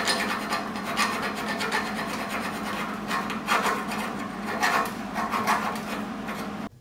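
Hand file scraping back and forth over a fresh steel weld on a car frame bracket, dressing the bead, in uneven strokes about one a second over a steady low hum. The filing stops suddenly near the end.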